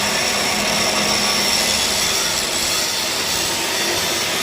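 Stick-welding arc burning a 7018 electrode on a cap pass: a steady hiss at an even level with no breaks.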